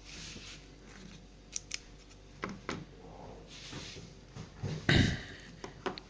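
Rustling and scattered clicks of a circuit board and multimeter test leads being handled on a workbench, with one loud knock about five seconds in.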